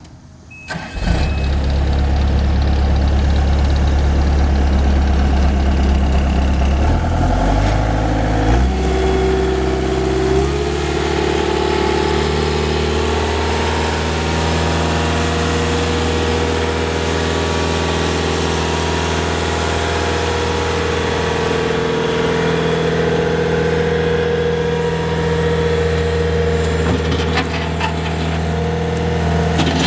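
Bobcat S220 skid steer's diesel engine: a short beep, then the engine comes up about a second in and runs at low speed. Its pitch rises in steps between about seven and ten seconds in, and it then runs steadily at the higher speed.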